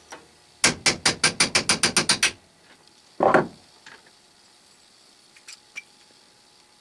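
A Vaughan hammer tapping a steel pin punch in quick succession, about a dozen light blows at some eight a second, driving a worn ball bearing out of its housing. About a second later comes one louder knock with a short ring, then a couple of faint clicks.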